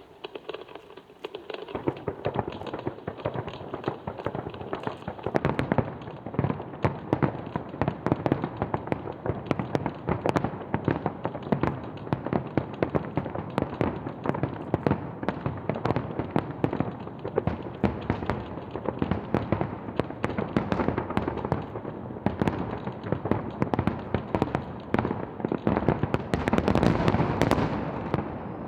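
Fireworks grand finale: a dense, continuous barrage of bangs and crackles that builds up about two seconds in and reaches its heaviest volley near the end.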